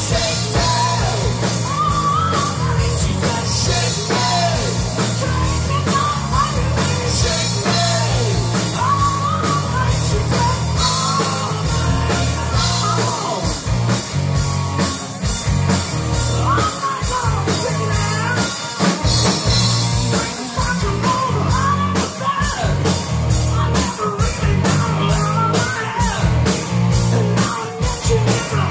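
A rock band playing live: electric guitars, bass guitar and a drum kit, with a singer's vocal line over them. The band plays at a steady loud level, without a break.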